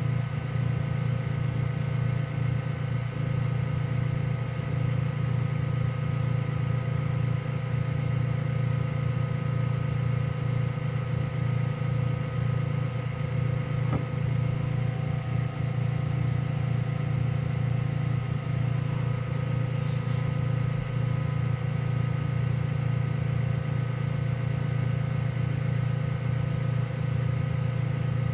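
Diode laser cutter running a slow cutting pass: a steady hum from its cooling fans and motors, with several faint steady tones above it.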